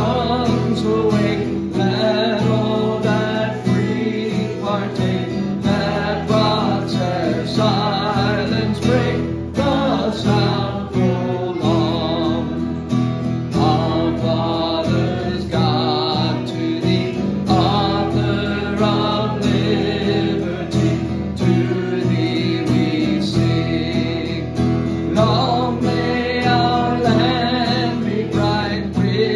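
A man singing to his own strummed acoustic guitar through a microphone, a slow hymn-like song that runs on without a break.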